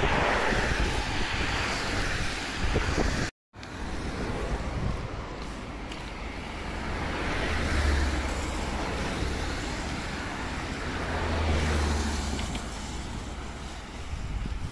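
Wind rumbling on the microphone, then after a brief silent break, road vehicles passing, the sound swelling and fading twice with a low engine hum.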